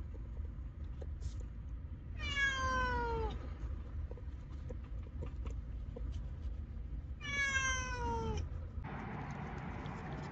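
A tabby cat meowing: two long calls, each falling in pitch, about five seconds apart. A steady hiss comes in near the end.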